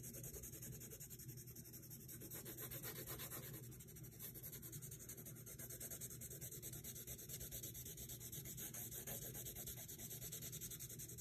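Blue coloured pencil rubbing on drawing paper in quick back-and-forth shading strokes, faint and steady, laying in and evening out a light background tone.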